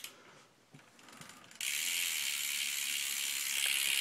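BMX bike's 14 mm sealed rear hub freewheeling as the back wheel spins, its pawls clicking so fast they merge into a steady high-pitched buzz. The buzz cuts in suddenly about a second and a half in, after a few soft clicks.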